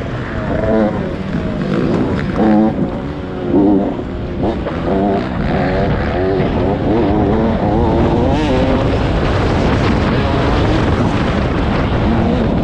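85cc motocross dirt bike engines revving hard, their pitch rising and falling over and over, with more than one bike heard at times.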